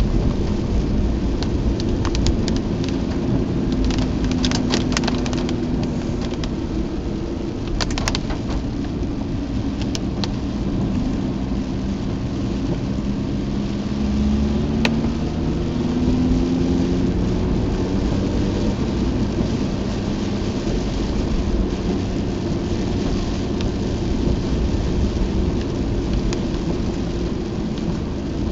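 Mazda RX-8 driving through heavy rain, heard from inside the cabin: a steady low rumble of wet-road and tyre noise with a rain hiss. The rotary engine's hum rises and falls, and a few sharp taps come through at scattered moments.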